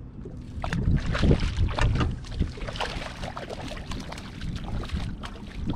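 Sea water slapping against the hull of a small moored fishing boat, with many short knocks and clatters scattered through it.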